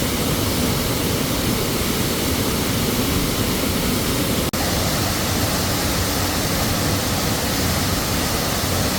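Waterfall rushing, a steady loud roar of falling water, with a split-second dropout about halfway through.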